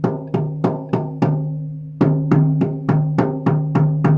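10-inch reindeer-hide frame drum, pegged European style, struck in a steady beat of about three strokes a second, with a short break about halfway. Each stroke rings on with a clear low pitch and overtones.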